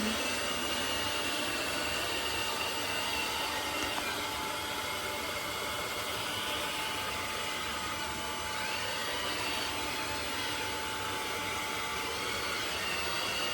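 eufy X10 Pro Omni robot vacuum and mop running: a steady whooshing motor noise with a faint high whine, unchanging throughout.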